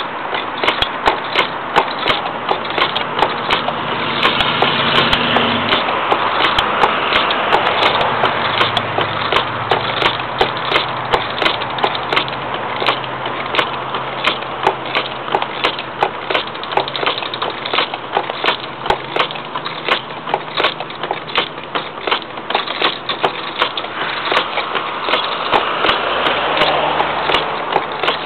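Turning gouge cutting a spinning wooden bowl blank on a homemade wooden treadle lathe: a continuous scraping, shaving noise that swells and eases as the cut goes, with a regular run of sharp knocks throughout.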